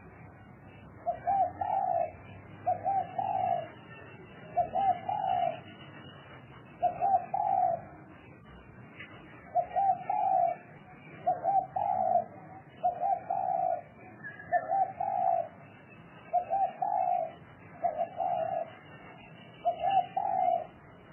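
A spotted dove cooing its song, repeating the same short phrase of two or three notes about eleven times, roughly every one and a half to two seconds.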